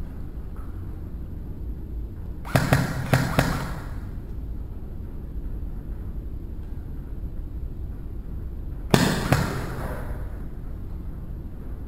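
Airsoft gun firing two short volleys of sharp cracks: four or five shots about two and a half seconds in, then three more about nine seconds in.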